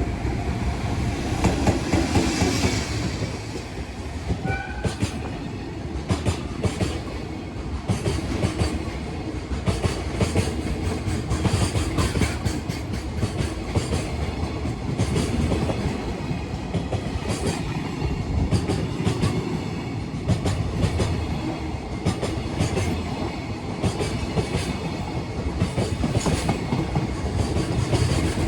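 JR Freight container train hauled by an EF210 electric locomotive rolling past, its wagons' wheels rumbling and clicking over the rail joints.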